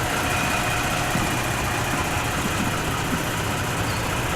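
Toyota Tacoma pickup's engine idling steadily.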